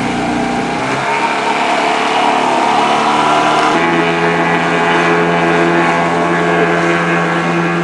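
An engine running steadily, its pitch creeping slightly upward over the first few seconds, then changing abruptly about four seconds in to a different, steady drone.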